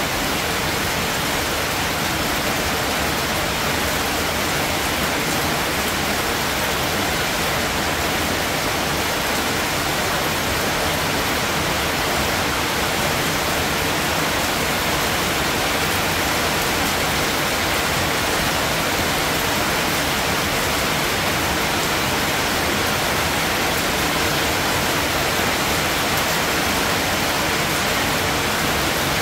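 Steady rain falling, a constant even hiss that does not rise or fall.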